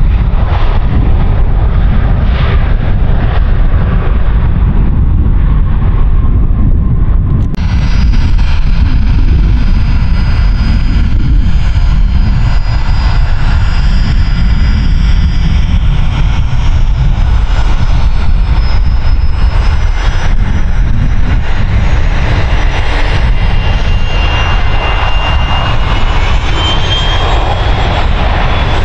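Jet airliner engines roaring steadily on landing: first an Airbus A320 rolling out on the runway, then, after an abrupt change about seven seconds in, a Boeing 737-800 on final approach and touchdown. Near the end a whine from its engines rises in pitch.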